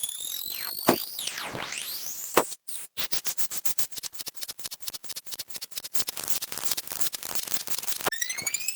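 Synthesized cartoon sound effects: rising and swooping electronic glides, then a brief silence and a fast run of clicks lasting about five seconds, before the rising glides start again near the end.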